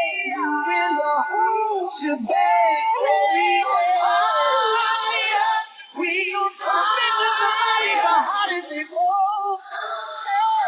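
A high-pitched sung vocal line from a song, with little or no bass beneath it.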